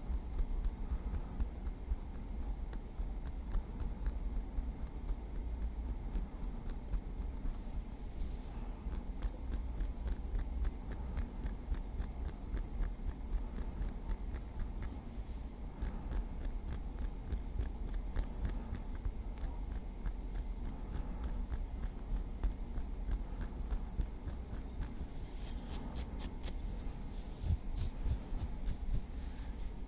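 A small wooden stick tapped and worked lightly, a long run of quick, crisp little clicks that thickens after about eight seconds and is densest near the end, over a low steady hum.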